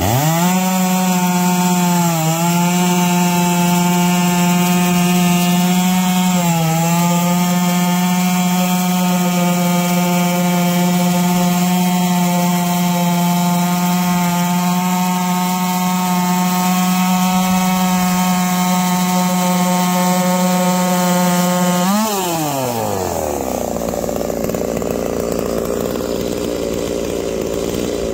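Holzfforma G660 two-stroke chainsaw ripping eastern red cedar on a chainsaw mill, running flat out at steady high revs under load with a couple of brief sags. About 22 seconds in the throttle is let off and the engine falls quickly to a rough idle.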